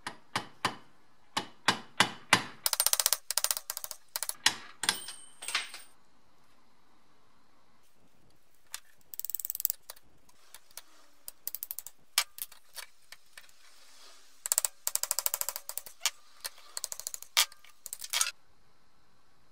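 Hammer striking a punch on a rusty breast drill's gear housing held in a steel vise: a series of sharp metal taps over the first few seconds. Later come several short runs of rapid metallic clicking, with further taps between them.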